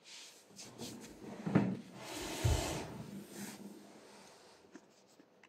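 Feet in thick cotton socks shifting and being set down on a wooden floor: rustling and sliding, with two soft thumps about a second and a half in and again a second later.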